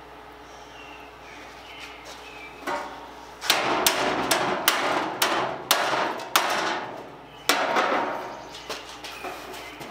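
A hammer striking the pitted steel sheet of the bin: about ten sharp blows in an uneven rhythm, each ringing briefly. The first comes about two and a half seconds in, and most fall in a run from about three and a half to eight seconds in.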